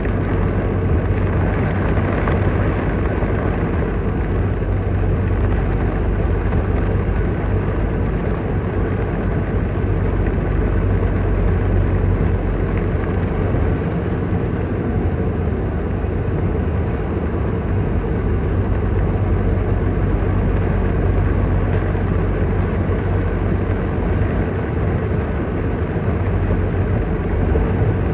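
Heavy rain falling steadily: a dense, even hiss with a strong low rumble underneath.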